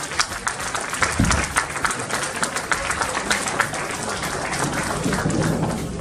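Audience applauding, many hands clapping together in a dense, steady stream of claps.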